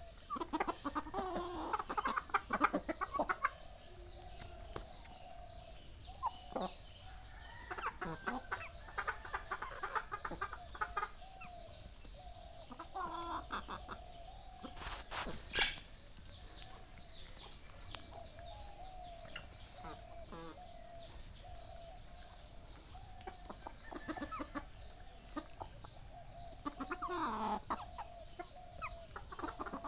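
Chickens clucking, with a short high chirp repeating about twice a second throughout.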